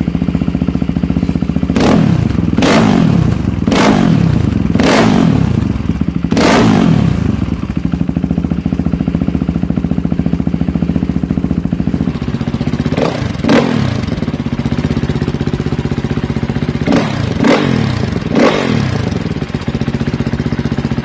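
Single-cylinder four-stroke engine of a KTM 450 EXC-F dirt bike idling on a stand, blipped sharply about ten times: five quick revs in the first seven seconds, then a steady idle, then five more revs later on.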